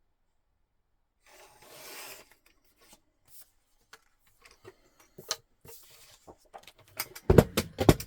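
Paper scraps rustling and being handled on a craft table, with scattered small clicks, then a quick run of loud knocks and taps near the end.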